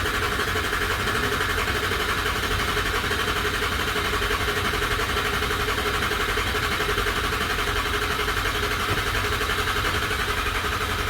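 Ford 6.0 L Power Stroke V8 diesel idling steadily just after starting, now running again after a no-start repair.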